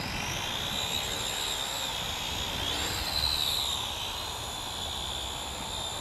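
Syma X5UC quadcopter's four motors and propellers whining as the drone spins up and lifts off on auto takeoff. The pitch climbs sharply at the start, then holds high and steady with a brief rise about three seconds in.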